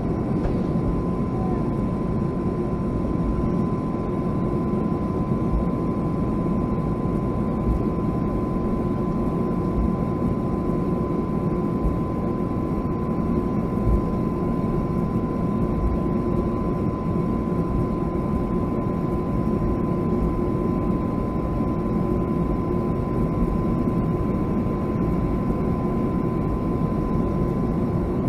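Boeing 757-200's jet engines at low thrust heard from inside the cabin while the plane is on the ground before takeoff: a steady deep rumble with a thin steady whine above it.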